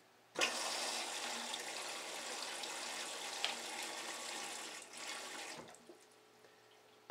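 Toto electronic bidet seat's wand spraying water at maximum pressure, the spray hitting a plastic cup held over it and splashing into the bowl. It starts suddenly about half a second in, runs steadily, and cuts off about a second and a half before the end, leaving only a faint trickle.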